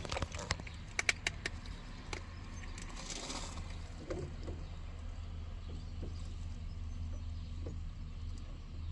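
Driver's electric window motor of a motorhome running with a steady low hum, winding the glass slowly, with a few sharp clicks in the first second and a half. The motor is slow and the glass needs a hand to help it along.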